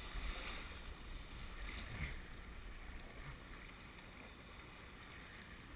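Rushing rapids and water splashing against the sides of a canoe as it runs through choppy whitewater; the splashing surges loudest in the first two seconds, then settles into a steady rush.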